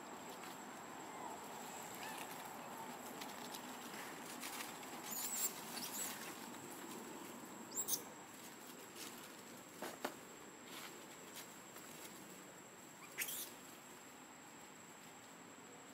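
Baby macaques giving short high squeaks while they play and wrestle, in three brief bouts, over a light rustle of dry leaves.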